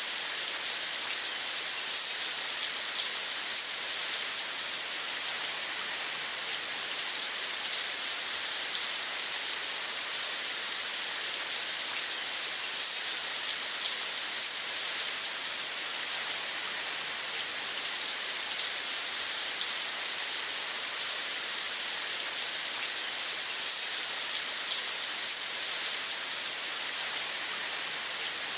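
Steady rain falling: an even hiss, strongest in the upper range, with many small drop patters and no change in strength.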